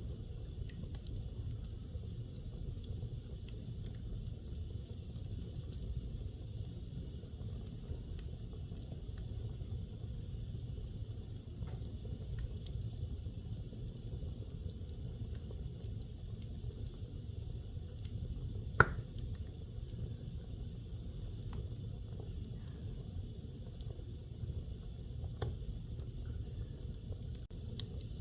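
Wood fire burning in a fireplace: a steady low rumble of flames with scattered faint crackles and one sharp pop about two-thirds of the way through.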